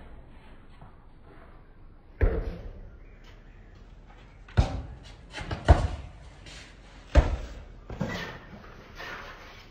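A basketball bouncing hard on a paved court: several sharp thuds at uneven intervals, the first about two seconds in, the loudest near the middle.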